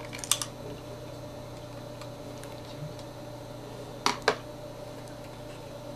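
Small metallic clicks of a screwdriver on the tiny screws holding a Mac mini's hard drive: a quick cluster just after the start and two more about four seconds in, over a steady faint hum.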